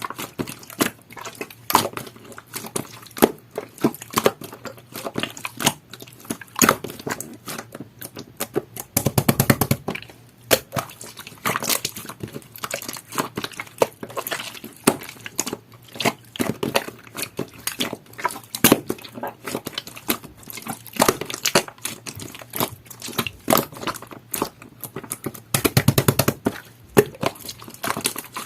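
Jelly-textured slime being squished and kneaded by hand, making a constant run of wet clicks and pops, with two denser bursts of crackling near the middle and near the end.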